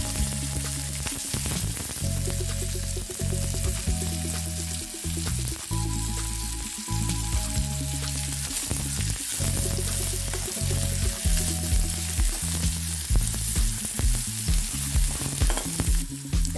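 Chopped onions, chillies and curry leaves sizzling as they fry in hot oil in a metal wok, with a spoon stirring and scraping the pan now and then. Background music with held notes and a steady bass plays along.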